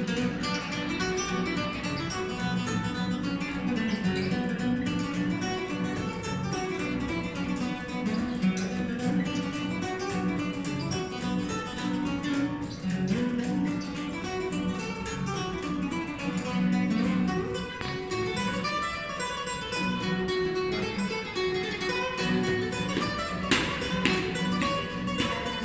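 Two acoustic guitars played together as a duet, a continuous run of plucked notes.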